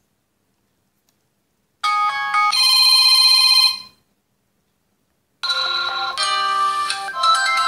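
Ulefone Paris smartphone's loudspeaker playing ringtone samples. A short melodic chime plays about two seconds in. From about halfway through, ringtone previews play continuously, changing tune a couple of times as different ringtones are picked from the list.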